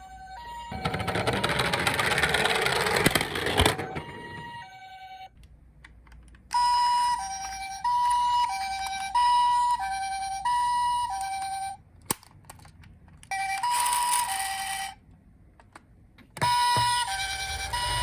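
Toy ambulance's electronic two-tone hi-lo siren, the Japanese 'pee-po' pattern, alternating a high and a low tone about every half second and sounding in three separate runs that stop and start again. Near the start there are a few seconds of rattling noise.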